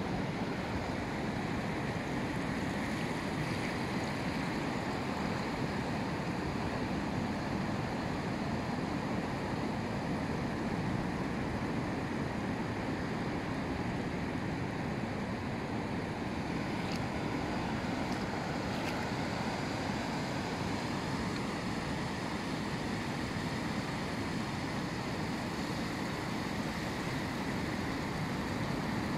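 Steady wash of breaking surf on a sandy beach, with wind on the microphone.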